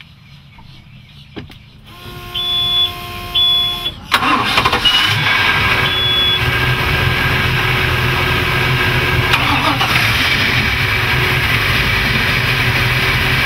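A few short electronic beeps, then the twin MerCruiser 7.4L MPI V8 inboards start about four seconds in and settle into a steady idle.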